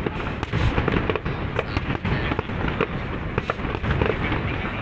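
Aerial fireworks display going off in quick succession: a dense run of bangs and crackles, many a second, over a low rumble.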